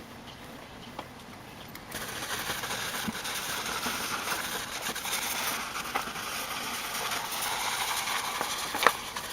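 Water spraying from a hose spray nozzle onto a car, a steady hiss that starts suddenly about two seconds in.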